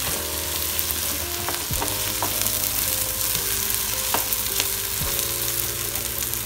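Ground masala paste and onions sizzling in hot oil in a frying pan. A wooden spatula stirs and scrapes, knocking against the pan a few times. Faint held notes of background music run underneath.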